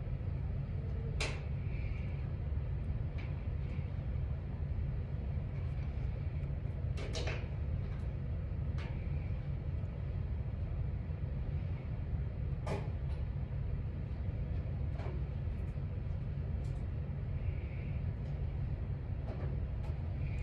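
Steady low background hum, with about half a dozen faint, sharp clicks and taps from small hand movements handling crepe hair and latex.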